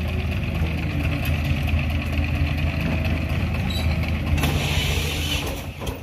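Diesel engines of a small wheel loader and a three-wheel utility truck running steadily at low revs. A hiss rises over them for about a second, some four and a half seconds in, and the sound fades near the end.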